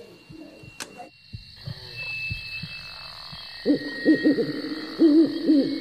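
Owl hooting in two quick runs of several hoots, the first about three and a half seconds in and the second near the end, over a steady high hiss. A few sharp knocks come in the first two seconds.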